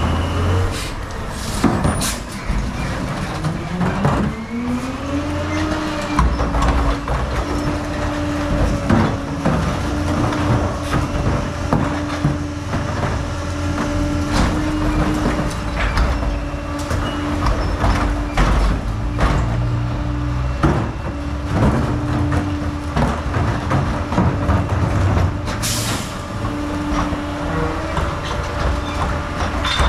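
CCC garbage truck with a PakMor rear-loader body: its engine speeds up over a few seconds and then holds at a steady raised speed while the packer runs, with repeated clanks and bangs of trash carts being tipped into the hopper. A short hiss of air near the end.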